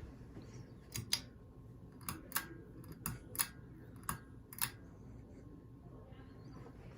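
Pull-chain speed switch of a Hunter Builder Elite ceiling fan being pulled repeatedly, four pairs of sharp clicks about a second apart as it steps through its speeds, over the fan's low running hum.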